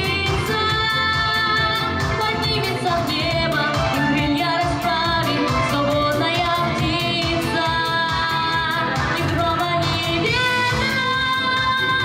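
A young girl singing a pop song through a microphone, holding long notes with vibrato, over backing music with a steady beat.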